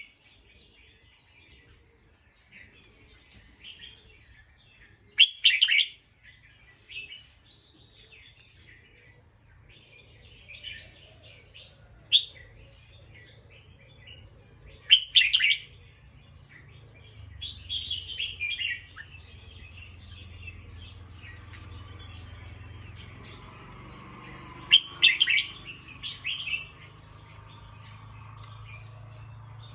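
A bulbul calling: short, loud bursts of chirping notes every few seconds, with softer chattering between them.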